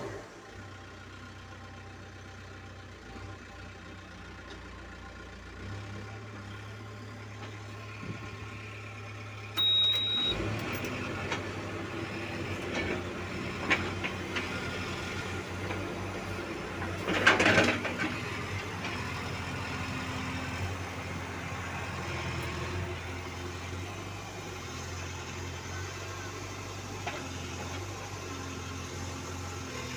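Case 770EX backhoe loader's diesel engine running steadily, heard from inside the cab; it grows louder about ten seconds in, just after a short high beep. About seventeen seconds in there is a brief, louder noisy burst.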